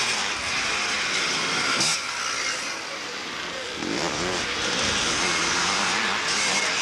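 Several motocross motorcycles racing on a dirt track, their engines revving with rising and falling pitch. The engine notes overlap. The sound eases a little in the middle, then rises again as more bikes come up and accelerate.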